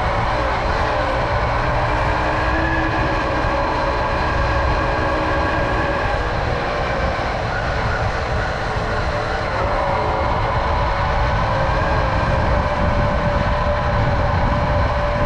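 Tomos Silver Bullet moped's single-cylinder two-stroke engine running at a steady cruise, its pitch drifting gently up and down, with a low rumble of wind and road noise.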